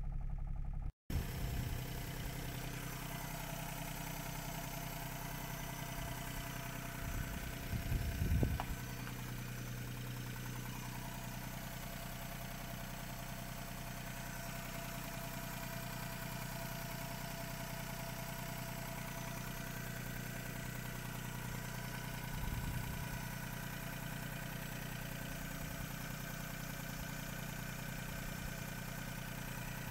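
Three-cylinder DOHC turbo EF-RL engine of a Perodua Kancil idling steadily, with two brief low swells in its note partway through. The owner hears a loud knock from inside the car and wonders if it is a conrod bearing, the crank or the head.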